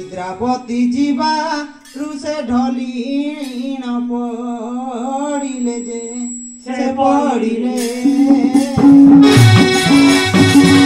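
Devotional folk singing: a solo voice sings a wavering, ornamented line over a steady held harmonium drone. About nine seconds in, hand-drum beats and the full ensemble come back in.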